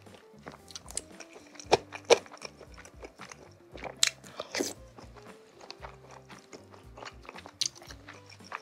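Close-up chewing of chewy cilok tapioca balls in spicy broth: soft wet mouth clicks and smacks, with a few louder sharp smacks about two and four seconds in, over quiet background music.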